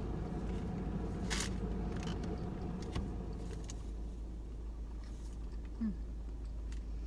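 Steady low hum and rumble inside a parked car, with a few faint clicks and a short rustle about a second and a half in.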